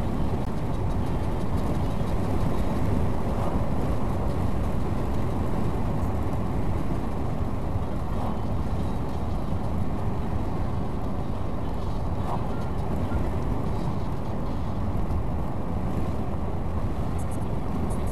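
Steady road noise of a vehicle cruising at about 37 mph on asphalt, heard inside the cabin: an even low rumble of tyres and engine that holds at one level.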